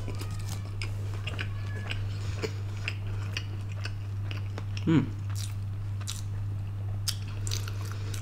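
Close-up chewing and biting of crispy fried chicken: irregular crisp crunches and mouth sounds over a steady low hum. A brief voiced sound about five seconds in.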